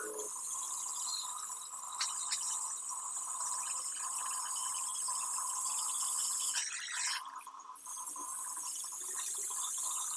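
MIG welding arc crackling and sizzling steadily, with a short break about three quarters of the way through.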